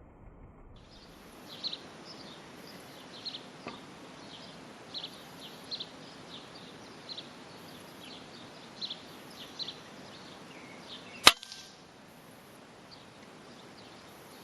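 Small birds chirping in quick repeated notes, then a single sharp rifle shot about eleven seconds in, after which the chirping mostly stops.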